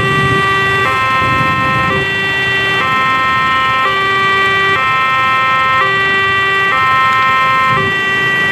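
Railway level-crossing warning alarm at a KRL commuter-line crossing: an electronic two-tone signal alternating between two notes about once a second, warning that a train is coming. Road traffic runs underneath it.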